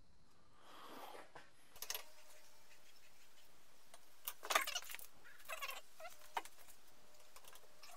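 Faint metallic clinks and rattles of rusty suspension parts and tools being handled, in a few short jangly clusters about two, four and a half, and five and a half seconds in.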